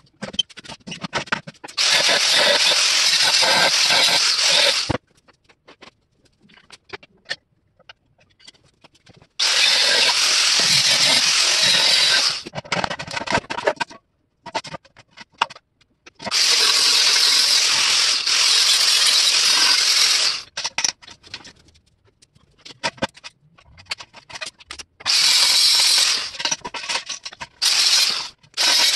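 Angle grinder with a cut-off wheel cutting through steel brackets and straps on an old tank, in several bursts of one to four seconds. Between the cuts come light knocks and clatter of metal being handled.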